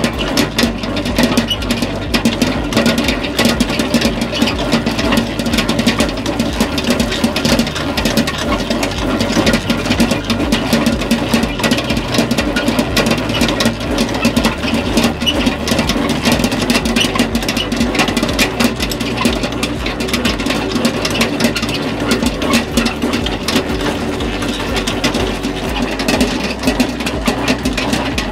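Commercial dough mixer running steadily, its motor humming with a dense rapid rattle as it kneads bun dough in the steel bowl.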